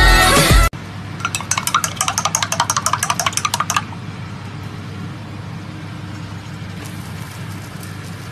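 Cooking on a hot flat griddle: a quick, even run of clicks and crackles for about three seconds, then a steady sizzle. Pop music cuts off just before it.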